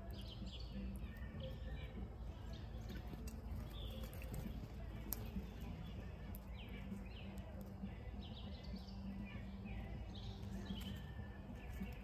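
Wild songbirds chirping and calling around a bird feeder: many short, quick chirps and little downward-sliding calls scattered throughout. A steady low hum runs underneath.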